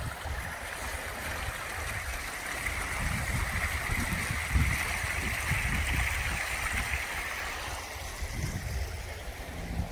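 Water rushing out of a corrugated plastic drain pipe outlet into a ditch, a steady gushing that is loudest in the middle stretch and eases toward the end, with low buffeting on the microphone.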